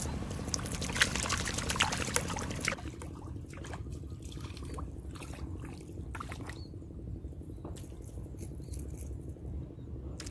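A hooked fish thrashing and splashing at the water surface for the first two to three seconds. After that come softer scattered drips and clicks of water.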